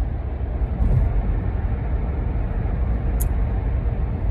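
Steady low rumble with an even hiss, the road noise of a moving vehicle, with a brief faint click about three seconds in.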